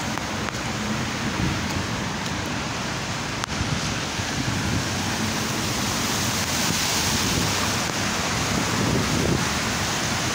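Heavy rain on a wet street, a steady rushing hiss, with wind buffeting the phone's microphone.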